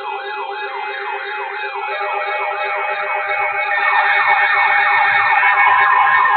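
Several electronic siren and alarm tones layered together, growing louder: a falling sweep repeating about three times a second over a fast-pulsing low tone and steady higher tones.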